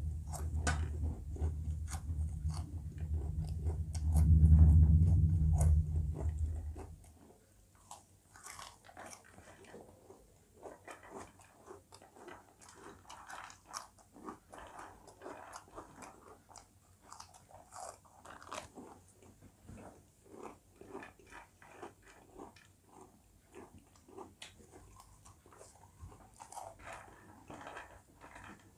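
Kurkure corn puffs being crunched and chewed, a long run of short crisp crunches. A loud low rumble lies under it for the first six or seven seconds, loudest about four to six seconds in, then stops.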